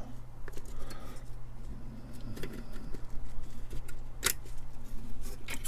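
256K SIMM memory sticks being handled and seated into their motherboard sockets: light scattered clicks and rattling, with a sharp click about four seconds in and another near the end.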